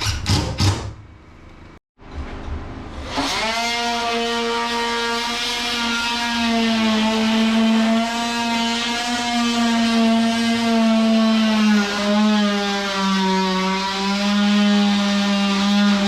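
A power tool's electric motor starts about three seconds in and runs steadily and loudly, its pitch dipping slightly now and then as if under load.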